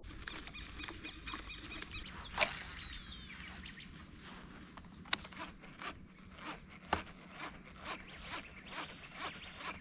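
Open-air ambience with animal calls, including a short descending call about two and a half seconds in, and scattered sharp clicks that come about twice a second in the second half.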